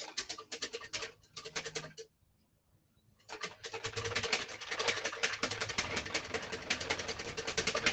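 Wire whisk beating egg yolks and oil into mayonnaise in a metal bowl: a fast run of clicks and scrapes. It stops for about a second, about two seconds in, then starts again and keeps going.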